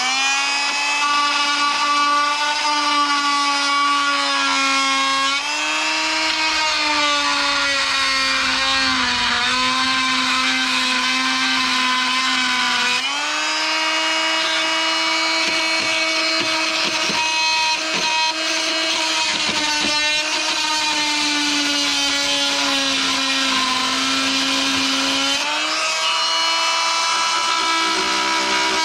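A small handheld power tool's motor running with a high whine while it grinds at rusted steel, its pitch sagging under load and recovering several times.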